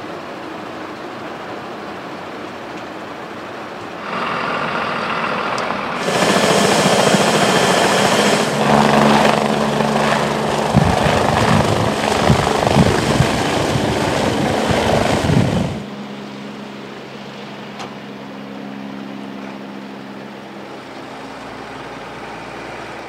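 ADAC rescue helicopter's turbines and rotor building up from a steady background rumble, then loud, with heavy rotor-blade thumping as it lifts off. After a sudden drop the helicopter is heard more distantly, a steadier, fainter hum that slowly fades as it flies away.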